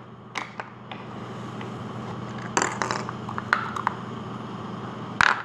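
Hollow plastic surprise-egg capsule halves clicking and knocking as they are handled and pulled apart, a few separate sharp clicks with the loudest about two and a half seconds in and another near the end, over a steady low hum.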